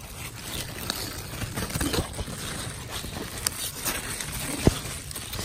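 Large loofah leaves and vines rustling and brushing close against the phone's microphone as a hand pushes through them, with small crackles throughout and one sharp tap about four and a half seconds in.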